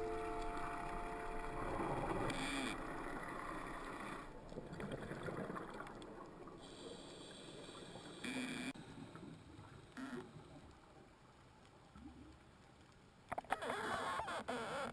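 Underwater sound picked up by a diver's camera: muffled water noise and bubbling, with short bursts of noise about six seconds apart, and louder bubbling near the end.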